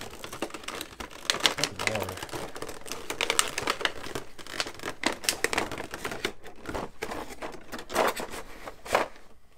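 Thin clear plastic board-game insert tray and lid crackling and clicking as they are flexed and pulled out of the box, with two louder snaps near the end.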